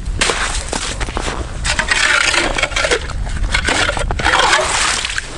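Hand ice auger boring into river ice: a grinding scrape with crunching ice chips, in uneven surges and loudest from about two seconds in.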